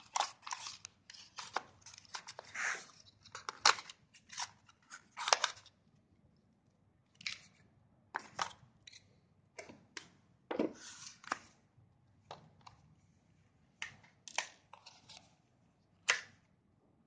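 Hands handling a phone's cardboard retail box, its inserts and small accessories: irregular clicks, taps and short rustles, thick in the first six seconds and sparser after.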